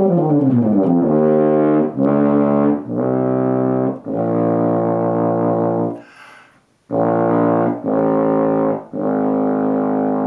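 French horn played in its low register through an Elephant mouthpiece: a downward slide, then a string of held low notes reaching down to the E-flat of the great octave, with a short break about six seconds in. The low notes speak freely and easily on this mouthpiece.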